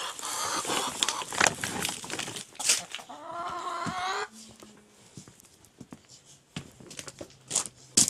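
Laying hens clucking as they crowd in to be fed, with one drawn-out rising hen call about three seconds in. Rustling as mixed grain feed is scooped by hand from a sack, then quieter scattered clicks and crunches.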